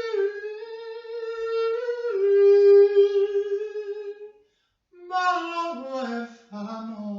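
A single voice singing long held notes without clear words, then after a brief pause a few shorter notes stepping down in pitch.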